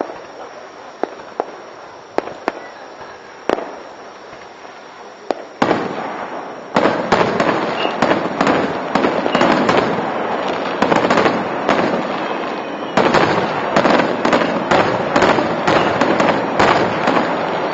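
Aerial fireworks going off, heard through a dashcam's microphone: scattered single bangs at first, then about six seconds in a dense, louder barrage of rapid overlapping bangs.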